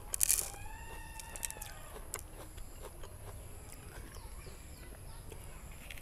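A rooster crows once in the background, an arching call lasting just over a second, right after a short crisp crunch near the start. Faint crunchy clicks of wax apple being chewed follow.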